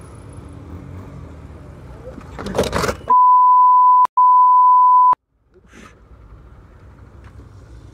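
A loud, steady, high-pitched censor bleep tone, broken once by a short gap, lasts about two seconds starting about three seconds in. It blanks out the rest of the sound. Before and after it there is motorcycle riding noise, with a loud burst of noise just before the bleep.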